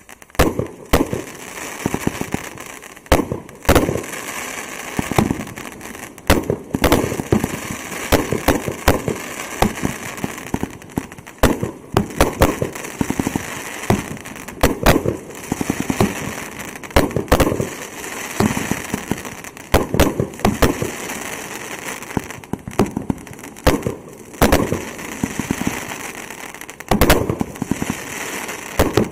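Consumer fireworks finale firing: a rapid, irregular string of loud bangs from bursting shells, often several in quick succession, over a continuous crackling hiss.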